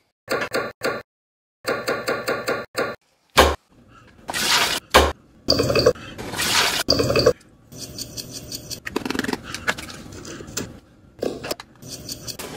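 Kitchen prep sounds in quick cuts. First a knife chops on a wooden cutting board in short bursts of knocks. Then liquid is poured into a glass bowl and seasonings are added, with light clinks of the bowl.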